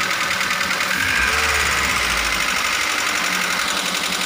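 Daihatsu Gran Max 1.3 engine running with a loud, rapid, rough clatter from the valvetrain, the sign of valve clearances set too loose.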